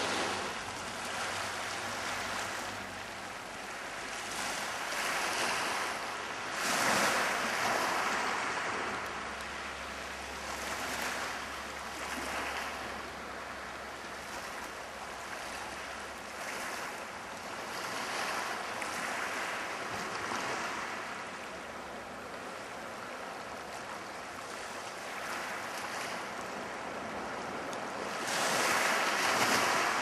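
Sea surf washing on the shore, rising and falling in slow swells, loudest about seven seconds in and again near the end.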